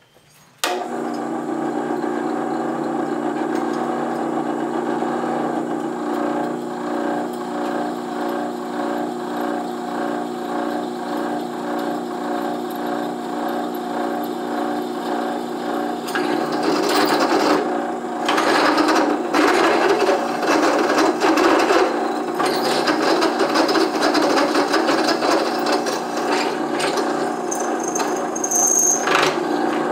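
Benchtop drill press running with a steady motor hum while drilling through mild-steel tubing. About halfway through the cutting turns louder and rougher, a ragged grinding over the hum as the bit bites into the steel.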